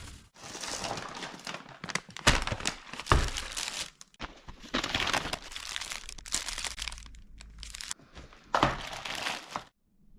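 Resin-primed car body panels being sanded by hand: abrasive rubbing in irregular scratchy strokes that stop and start abruptly, cutting off suddenly near the end.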